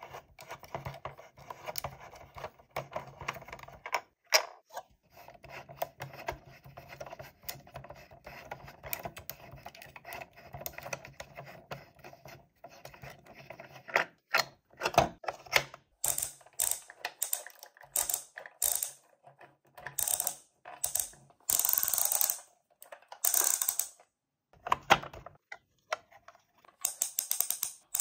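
Handling of a small plastic toy mechanism: a dense, fine clicking and ratcheting for the first half or so, then a run of separate sharp clicks and short rustles.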